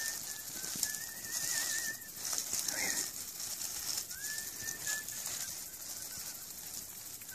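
Small bird calling: short thin whistled notes and a brief warbling trill, over a steady high hiss.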